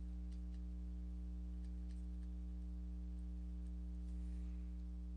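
Steady low electrical hum under faint, scattered ticks and light scratching of a stylus writing on a tablet.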